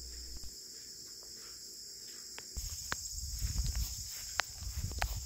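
Steady high-pitched trilling of crickets. From about halfway, footsteps in the debris add a low rumble and scattered sharp clicks.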